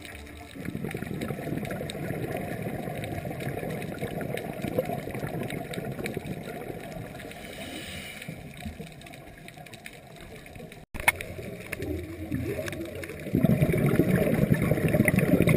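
Underwater recording of a scuba diver's exhaled bubbles and regulator, a low rumbling gurgle that drops out with a click about eleven seconds in and comes back louder over the last couple of seconds.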